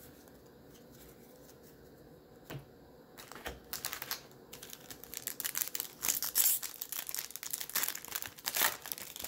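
Wrapper of a 2021 Topps Series 1 baseball card pack crinkling as it is taken from the box and torn open: a run of crackly rustles from about three seconds in, busiest near the end.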